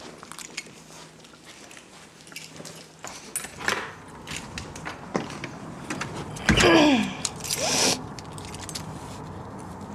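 A bunch of keys jangling and clicking, with scattered knocks, and a loud falling sound a little after two-thirds of the way through.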